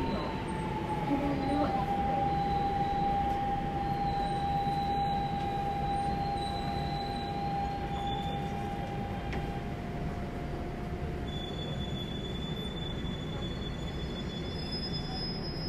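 Daegu Metro Line 1 train running, heard from inside the car: a steady rumble of wheels on track with a thin whine that slides down slightly in pitch near the start, holds steady, and fades out about two-thirds of the way through.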